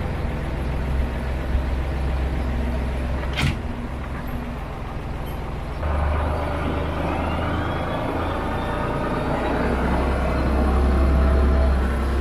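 Massey Ferguson 4707 tractor's diesel engine running steadily, with a brief sharp noise about three and a half seconds in. Near the middle the engine gets louder and stays up as the tractor reverses away.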